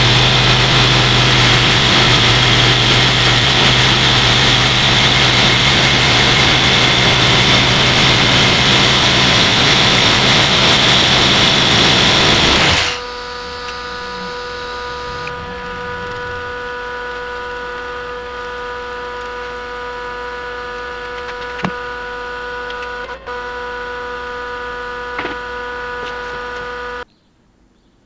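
Homemade bandsaw sawmill running loudly with a high whine as its blade cuts through a walnut burl log. About halfway through it drops suddenly to a quieter steady hum, then cuts off a second before the end.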